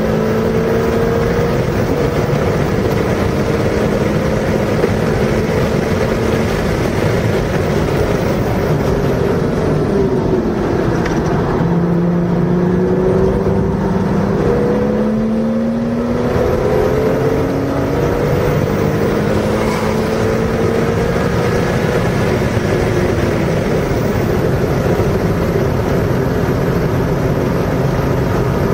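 Car engine under hard acceleration through the gears, its pitch climbing and dropping back at each gear change, with a slower dip and rise about ten to twelve seconds in, over steady road and wind noise.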